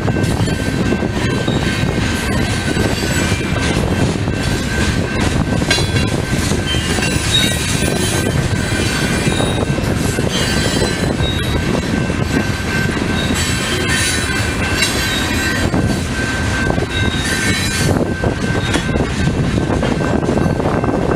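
Loaded rock hopper cars of a Union Pacific freight train rolling steadily past, a continuous heavy rumble of steel wheels on rail with high-pitched wheel squeals coming and going.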